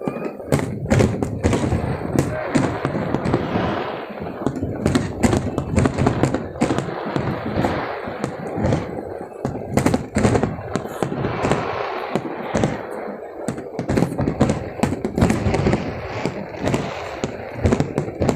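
Fireworks display: many sharp bangs and crackles going off in rapid, irregular succession.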